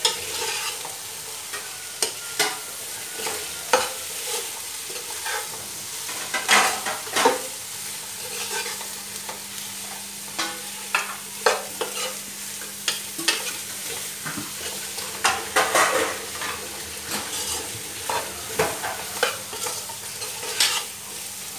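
Metal spoon stirring rice dumplings in a nonstick pot, with repeated scrapes and clicks against the pan over a light frying sizzle.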